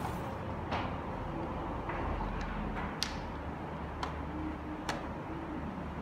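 Chinese chess (xiangqi) pieces tapping and sliding on the board as they are moved by hand. About six sharp clicks come irregularly, a half second to a second apart, with the loudest about three seconds in.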